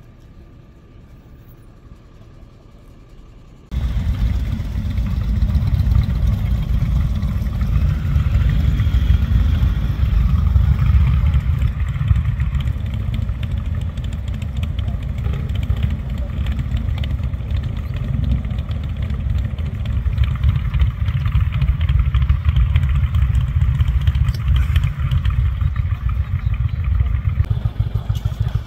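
Motorcycle engines running as bikes ride in, a loud low rumble that starts abruptly about four seconds in after a quiet stretch.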